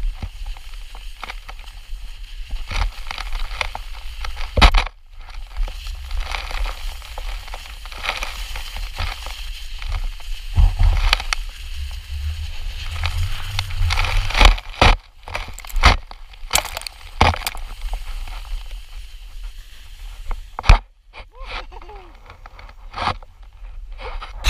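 Plastic bum sled (dupolot) sliding fast down a packed snow slope: a continuous scraping hiss of snow under the sled, with wind buffeting the microphone and many sharp knocks as it runs over bumps.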